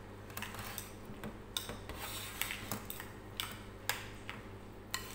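A utensil scraping and clinking against a glass mixing bowl at an uneven pace, stirring wet, yogurt-coated rice, over a steady low hum.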